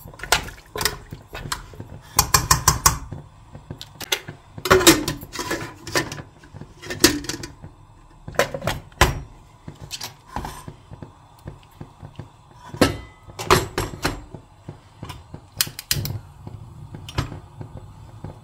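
Stainless-steel pressure cooker's lid being fitted and locked down: a string of metal clicks, knocks and light clatter. There is a quick run of clicks about two seconds in.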